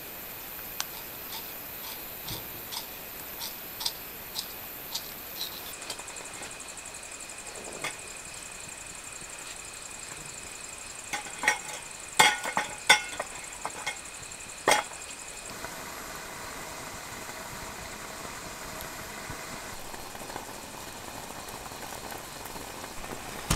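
Stainless steel camp cookware being handled at a small wood-burning stove: a cluster of clinks and taps about halfway through. Underneath is a steady high-pitched hiss, with soft regular ticks, about two a second, in the first few seconds.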